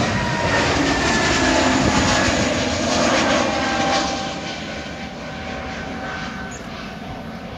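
Jet airliner climbing out just after takeoff, its engines a loud roar with a whine that falls in pitch as it passes, fading after about four seconds as it climbs away.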